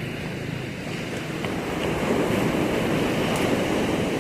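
Sea waves at high tide washing in, the surf swelling to its loudest about two seconds in and easing off near the end.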